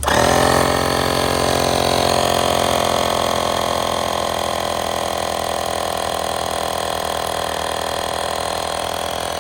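AstroAI 12V portable tire inflator's electric air compressor switching on abruptly and running at a steady pitch, pumping air into a tire toward its preset 60 psi cut-off.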